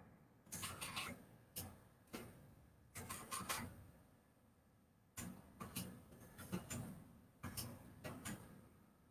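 Faint clicking of a computer mouse and keyboard in short clusters, a few sharp clicks at a time, spaced roughly every half second to a second.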